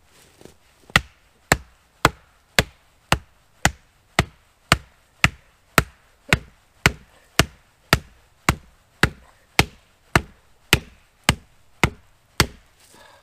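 A hatchet chopping into wood: about twenty sharp, evenly paced blows, a little under two a second, starting about a second in.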